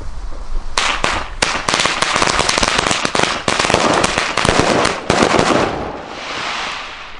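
A chain of Tric Trac Cipolla firecrackers loaded with flash powder going off: a dense run of rapid, sharp bangs starting about a second in and lasting about five seconds, then dying away.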